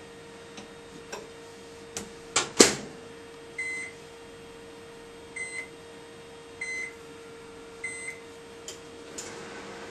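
Microwave oven: a few clicks and a loud clunk of the door shutting, then four short keypad beeps about a second apart as it is set, and a click near the end as it starts running with a steady fan hum.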